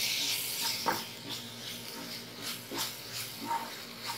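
Wooden spatula stirring and scraping a thick coconut-onion masala in a nonstick pan, a few soft scraping strokes over a light sizzle that thins after the first second.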